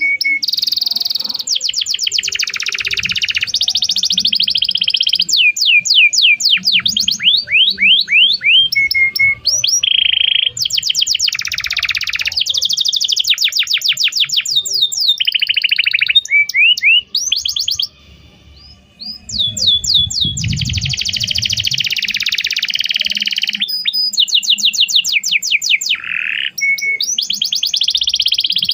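Domestic canary singing a long, loud song of rapid trills, chirps and fast sweeping notes, with a brief pause a little past the middle.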